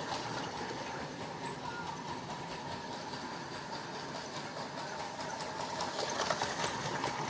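Lionel Gold Rush Special toy electric train running on its track: a steady motor whir with fine, rapid clicking from the running gear. It is on its first run in 32 years, its drive rods freshly oiled.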